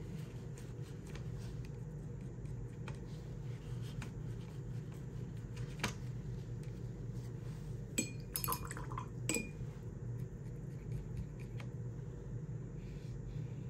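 A paintbrush clicking and clinking against a plastic watercolour pan set and a glass water cup, over a steady low hum. There are a few light clicks, and a short run of clinks with brief ringing about eight to nine seconds in.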